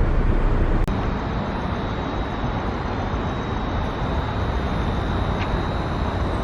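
Steady vehicle and traffic road noise with a low rumble, broken by a sharp click about a second in, after which it carries on slightly quieter.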